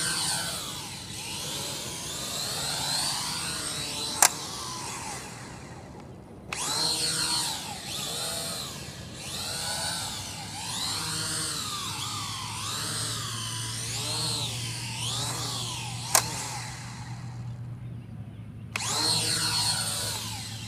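Syma X8W quadcopter's four motors and propellers whining at full throttle as it lifts off and climbs, the pitch sweeping up and down as the throttle changes. The whine drops out briefly twice, and there are two sharp clicks, the louder one about four seconds in.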